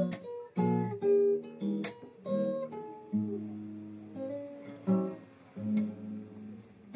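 Background acoustic guitar music: plucked notes and chords that ring and fade one after another.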